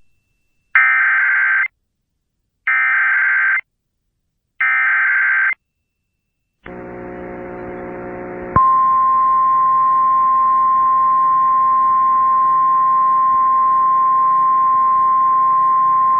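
Three short bursts of Emergency Alert System SAME header data: warbling digital tones, each just under a second, with gaps between them, that encode the alert. After a pause a low buzz comes in, and about eight and a half seconds in the single steady high attention tone of a National Weather Service relay starts and holds.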